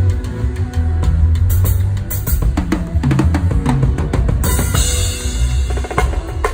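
Drum kit played hard over a heavy bass line: kick and snare, a fast run of drum hits about halfway through, then a cymbal crash about four and a half seconds in.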